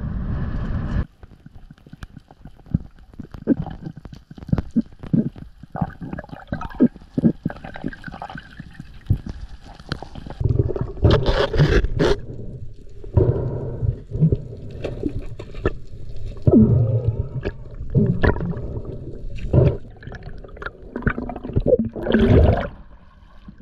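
Water heard through a camera under and at the sea's surface: muffled sloshing, gurgling and bubbling, with scattered crackling clicks and several louder splashing surges. It opens with a dinghy's outboard motor running, which cuts off about a second in.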